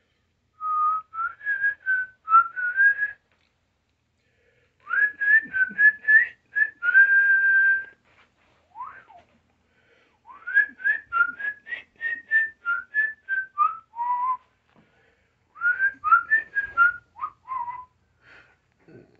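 A person whistling a tune: a single clear pitch stepping up and down in four short phrases with pauses between them, one note held long in the second phrase.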